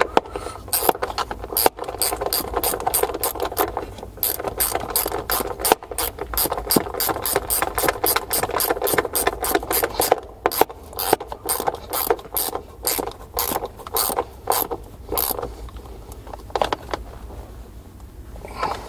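Ratcheting clicks in quick even runs, about four a second, over a rustle of cables being handled; the clicks thin out and stop a few seconds before the end.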